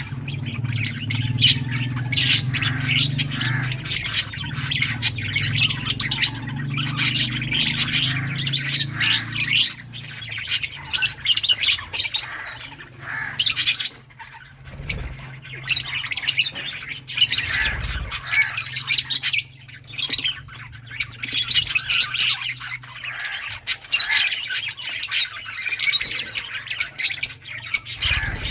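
Several lovebirds chirping and squawking in a dense, rapid run of high chirps with only brief pauses. A low steady hum runs underneath for roughly the first ten seconds.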